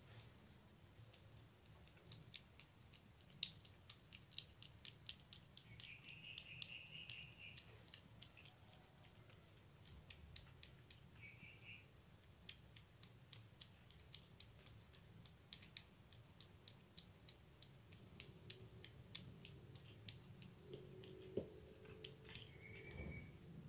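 Persian cat eating wet sardine cat food off a spoon: faint, irregular clicks of chewing and licking.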